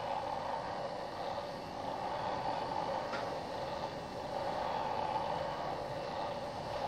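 A steady, unidentified droning noise that does not let up, with a faint click about three seconds in.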